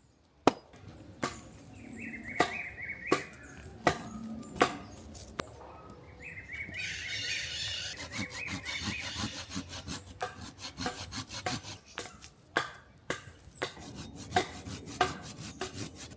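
Hand saw cutting through hard, dry wood, with stretches of quick back-and-forth strokes and sharp wooden knocks throughout.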